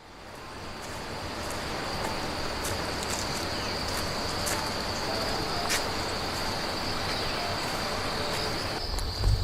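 Insects singing in a steady high-pitched drone over outdoor ambience, fading in over the first second or two. A low thump comes near the end.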